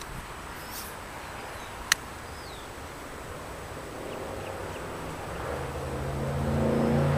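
A motor vehicle's engine approaching on a nearby road, a low steady hum that grows louder through the second half, over an outdoor background hiss. A single sharp click sounds about two seconds in.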